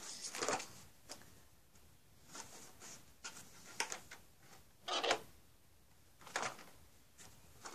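Handling noises close to the microphone as a box is moved about: about half a dozen short, irregular rustles and scrapes, with the loudest about five seconds in.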